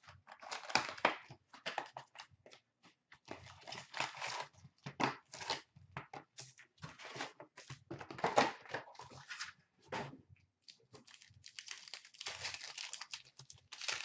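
Cellophane wrapping, cardboard and foil trading-card packs crinkling and tearing in irregular bursts as a sealed hockey card box is unwrapped and its packs are pulled out and ripped open.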